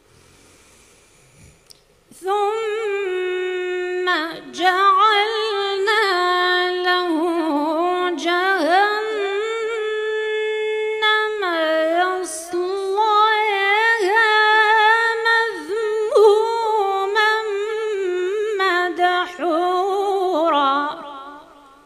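A woman's voice reciting the Quran in a melodic Moroccan style, with long held notes and ornamented, wavering turns. It begins about two seconds in and stops just before the end.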